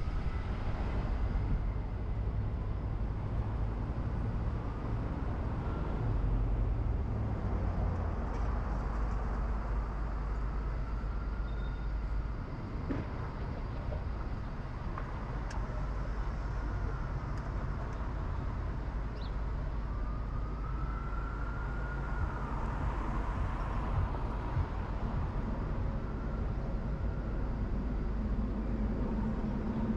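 Car driving in city traffic: a steady low rumble of engine and tyres on the road, with a faint whine that rises and falls about two-thirds of the way through.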